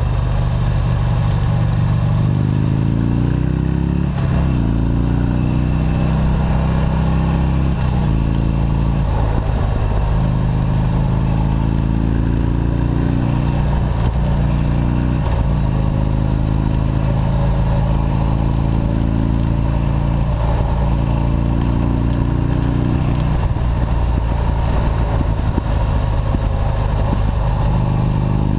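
Motorcycle engine running at road speed, its pitch climbing and then dropping sharply several times as the rider works the throttle and shifts gears.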